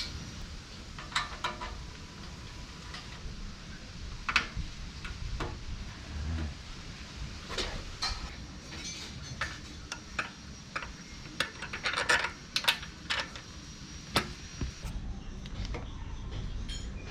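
Irregular light metallic clinks and clicks of hand tools and hardware being handled while a solo seat is fitted to a motorcycle. They come thickest about three quarters of the way through.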